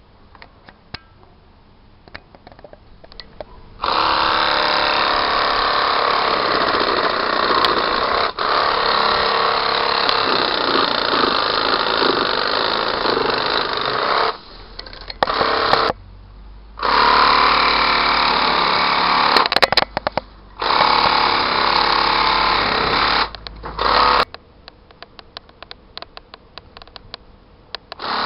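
Motor-driven telescopic pole saw running as it saws at branches. It starts about four seconds in and runs steadily for about ten seconds, then runs again in three shorter bursts and stops, leaving scattered clicks.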